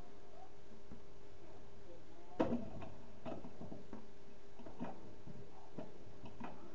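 Small low-temperature Stirling engine running on a hot cup of coffee, giving light ticks roughly twice a second, starting with a sharper click about two and a half seconds in, over a faint steady hum.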